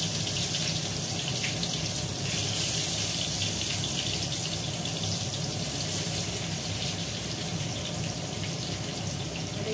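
Eggplant slices sizzling steadily in mustard oil on a tawa over a low gas flame.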